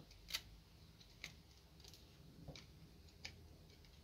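A few faint, scattered clicks of tarot cards being handled: card edges and long fingernails tapping against the stiff card stock as the cards are moved.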